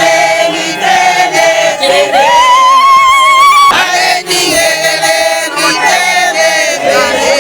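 A group of voices singing together, with one high voice rising into a long held note in the middle.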